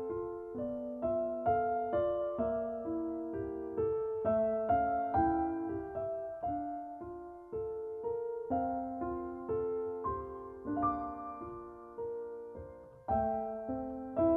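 Piano music: slow single notes and chords struck and left to ring, with a louder chord about thirteen seconds in.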